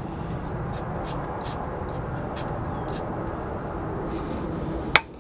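Several short hisses from an aerosol spray can squirted into the drilled bolt hole in the output shaft, over a steady low background noise, then one loud sharp click near the end.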